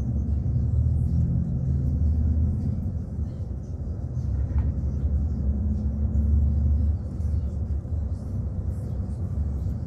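Low rumble of a coach bus's engine and road noise heard from inside the passenger cabin while the bus drives, swelling twice and easing in between.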